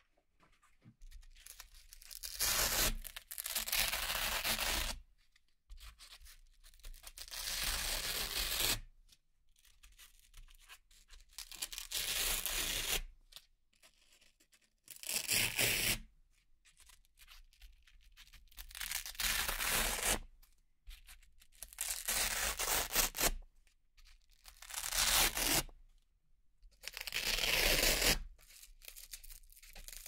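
Velcro hook-and-loop pieces being peeled off a board by hand, one after another: about a dozen separate ripping tears, each lasting a second or two, with short quiet pauses between them.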